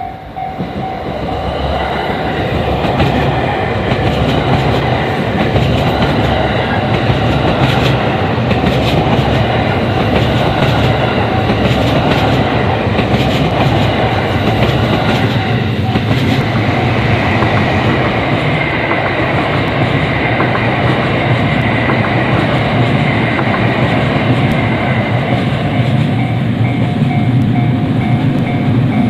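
A train running through a railway level crossing, its wheels clattering steadily over the rails for the whole stretch. Over it rings the crossing's repeating warning bell, clear at the start and again near the end.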